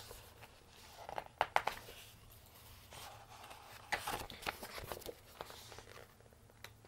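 Pages of a hardcover picture book being turned and handled: paper rustling and crinkling, with crisp snaps of the pages about a second and a half in and again about four seconds in.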